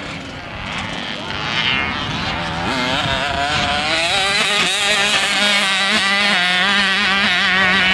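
Dirt bike engines running, with one revving up and down and growing louder from about three seconds in.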